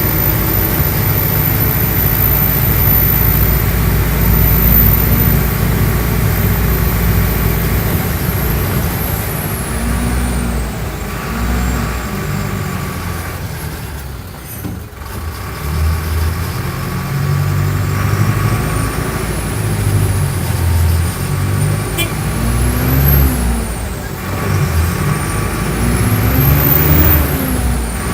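Mercedes-Benz OF-1417 bus's six-cylinder turbo-diesel running under way. The revs ease off to a low point about halfway through, then climb and fall again several times, with a high whistle rising and falling along with them.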